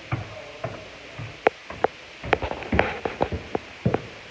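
Irregular footsteps and knocks with light rustling, as someone walks carrying the camera; the knocks come unevenly and bunch up in the second half.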